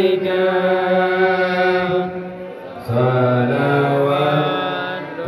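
A man chanting selawat, Arabic praises of the Prophet, in a sad-sounding voice, holding long steady notes; one phrase ends about two seconds in and, after a brief breath, a second long phrase follows.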